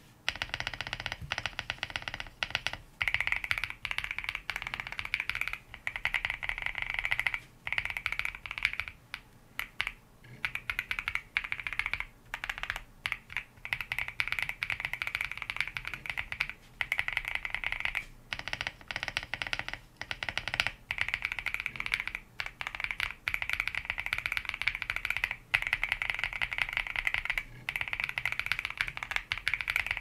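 Mechanical keyboard with factory-lubed Aflion Blue Sky switches being typed on, in fast runs of keystrokes broken by short pauses every second or few.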